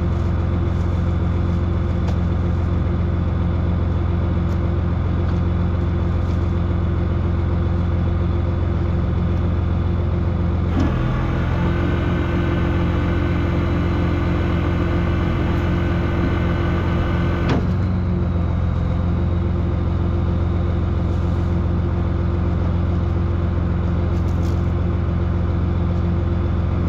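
An engine running steadily with a constant low drone. About a third of the way in its tone shifts, with a brighter whine added on top, and it returns to the first tone a little past halfway.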